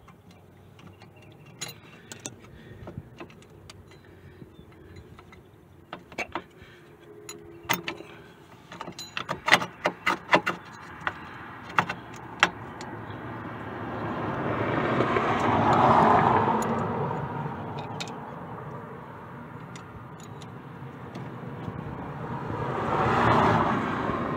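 Light metallic clinks and taps of pliers against drum-brake springs and shoe hardware, thickest in a quick flurry a little before halfway. Then two vehicles pass by, each a whoosh that swells and fades, the first and louder one about two-thirds in and the second near the end.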